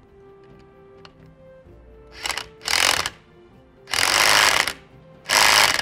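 Cordless power drill with a 9/16 socket driving a nut onto a bolt, run in four short bursts in the second half.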